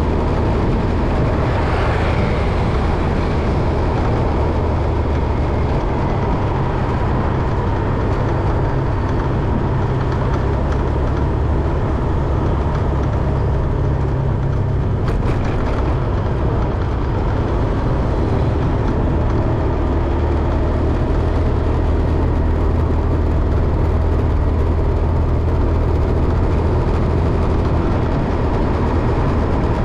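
Steady low rumble of a moving vehicle: engine and road noise, with no break or change in level.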